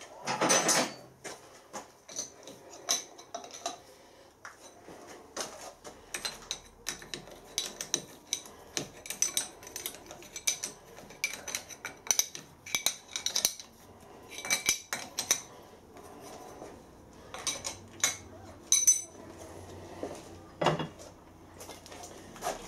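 Irregular metal-on-metal clinks and knocks of a steel machine vise being settled on a milling machine's T-slotted table and its hold-down nuts tightened with an open-ended spanner, with a heavier knock right at the start and another near the end.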